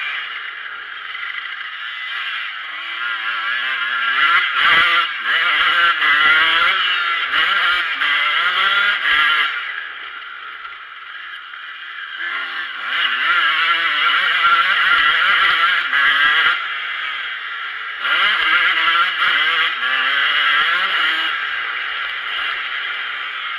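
Motocross bike engine, heard from on the bike, revving up and easing off again and again as it is ridden round a dirt track, with a quieter stretch about ten to twelve seconds in before it pulls hard again.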